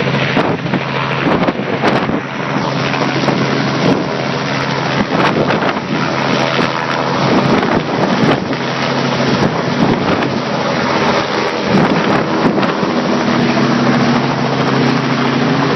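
Small helicopter lifting off and flying away, its steady engine and rotor hum mixed with loud wind noise on the microphone.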